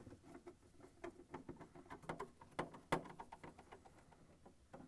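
Quarter-inch nut driver backing screws out of a plastic freezer slider adapter: faint, irregular small clicks and scratches, with one sharper click about three seconds in.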